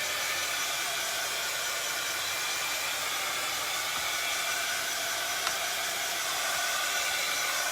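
Handheld electric hot-air dryer blowing steadily at an even level, drying freshly applied chalk paint.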